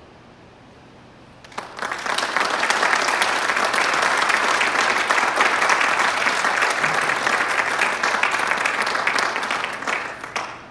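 Audience applauding at the end of a concert band piece: the clapping breaks out about a second and a half in, once the band's last note has faded, and tails off near the end.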